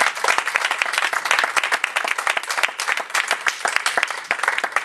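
A church congregation applauding: many hands clapping in a dense, steady round of applause.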